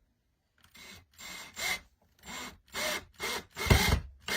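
Small screw being driven into a wooden breadboard through a metal vase holder, in a series of short grinding strokes about two a second that grow louder, with heavier thumps near the end as the screw seats.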